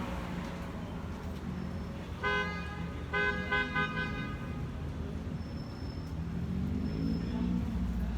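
Car horn honking over a steady street-traffic rumble: one short honk, then about a second later a longer honk broken into three quick blasts. A vehicle engine grows louder near the end.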